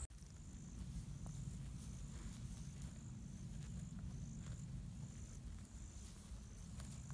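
Faint insect chirping: a short high chirp repeated about every half second, over a low steady rumble.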